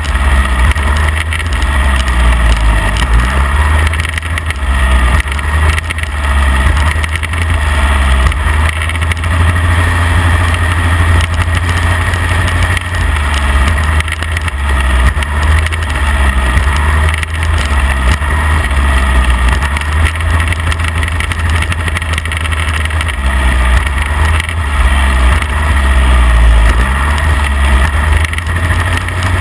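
Midget race car's engine running hard at race speed, heard from inside the open cockpit. Its note dips and climbs again every few seconds.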